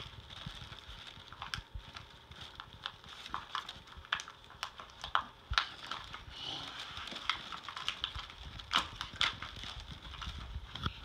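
Wrapping paper and tissue paper rustling and crinkling as presents are handled, with irregular sharp clicks and taps from toys and packaging.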